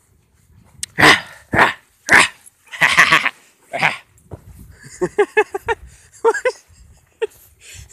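A dog barking, five harsh barks in the first four seconds, then a quick run of about six short, higher yips about five seconds in and a few more near the end.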